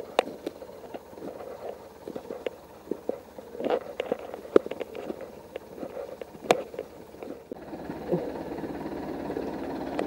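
Footsteps crunching over twigs, brush and mud, with irregular snaps and clicks. About three quarters of the way through, the steady running of a Zetor tractor engine comes up underneath.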